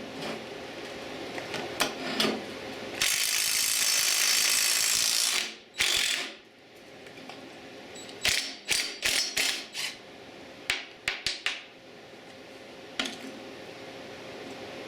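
Socket ratchet clicking in short runs while a mower-deck blade is being taken off its spindle. A loud steady hiss lasting about two seconds comes a few seconds before the clicking.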